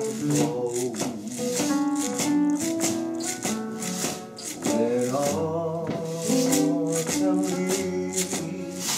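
Two acoustic guitars strummed in a steady rhythm while a man sings along.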